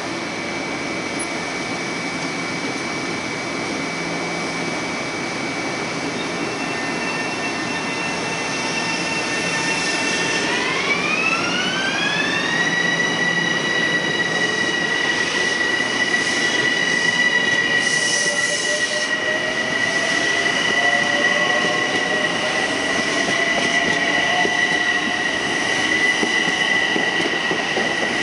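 Bombardier M-7 electric multiple-unit train starting to pull out: a steady electrical hum, then about ten seconds in its propulsion whine rises in pitch over a couple of seconds and holds high, while a lower whine climbs slowly as the train gathers speed.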